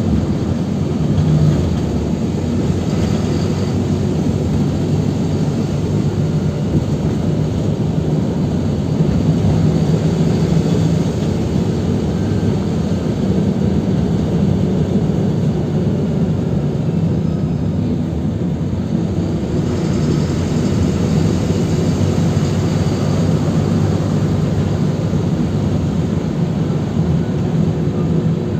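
PAZ 320405-04 bus engine running and road noise while driving, heard from inside the passenger cabin as a steady low drone with a slight swell about a third of the way in.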